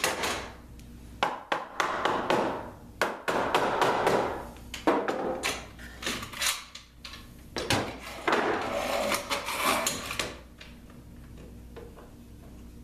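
Wooden rib and Bessey bar clamps being handled as the rib is clamped into its glued joint: a run of sharp wood-and-metal knocks and clicks, broken by several longer rasping stretches as the clamp is slid and screwed tight. It all stops about ten seconds in.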